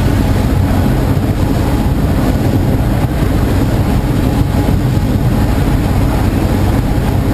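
Boat engines running steadily under way: a constant low drone with a rushing noise over it.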